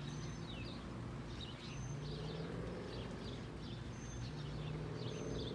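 Birds chirping repeatedly over a steady low hum.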